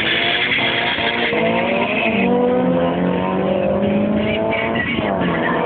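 Two Honda Civic four-cylinder engines at full throttle in a drag race, their pitch climbing through the gears and dropping at a shift about two seconds in and again near the end. A high hiss runs alongside until the first shift.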